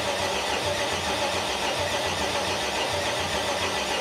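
Swapped-in GM LS V8 being cranked over by its starter for the first time after rewiring, turning steadily with a rhythmic low pulsing and not firing.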